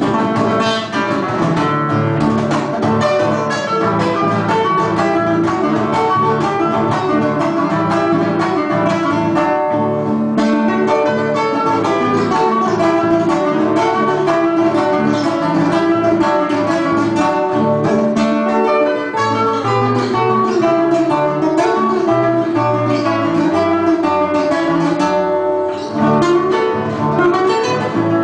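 Trio of acoustic guitars playing an instrumental gato cuyano, Argentine folk music, the three parts plucking and strumming together in a dense, continuous texture, with a brief break about two seconds before the end.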